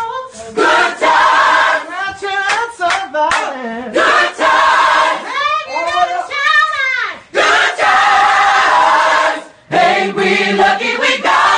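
A group of people singing together in unison, in loud phrases broken by short pauses.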